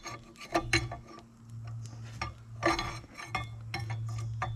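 Hammer blows on a steel chisel, sharp metallic clinks at an irregular pace, splitting and driving the bearing retainer ring off a Jeep Wrangler rear axle shaft. There are a few quick strikes in the first second and a louder one near the middle, over a steady low hum.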